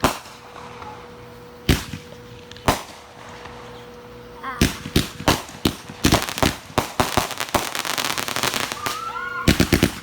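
Fireworks going off. A few separate bangs come in the first three seconds, then from about halfway a rapid string of popping, crackling bangs runs to the end.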